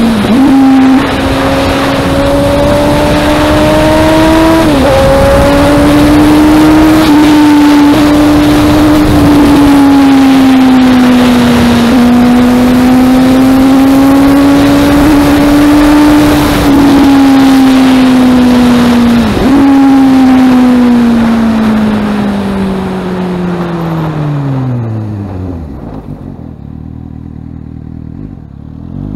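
Suzuki GSX-S750's inline-four engine through a Yoshimura R-11 exhaust, running at high revs under way with loud wind noise. The pitch dips briefly three times, then falls steadily as the bike slows, and the wind noise dies away, leaving low revs near the end.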